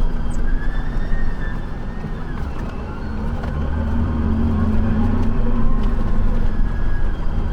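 Large diesel farm machinery running steadily during wheat harvest, a loud low engine drone with a faint whine that drifts slightly up and down.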